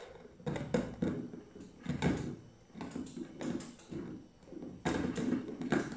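QiHui portable blender's plastic motor base being twisted onto its glass jar of ice, the screw threads scraping and clicking in short irregular bursts as it is tightened.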